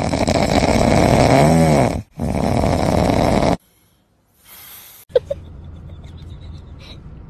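A person snoring loudly: two long snores with a brief break between them, the first carrying a rising-then-falling pitched tone.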